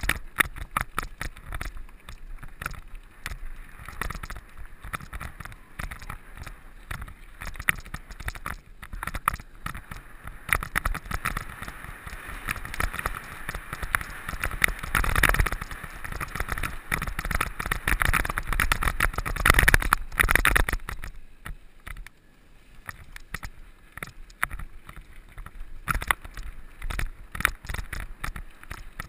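Mountain bike ridden over rough quarry trail: rapid rattling and clatter from the bike, with rushing tyre and wind noise that swells loudest past the middle and drops off briefly near the end.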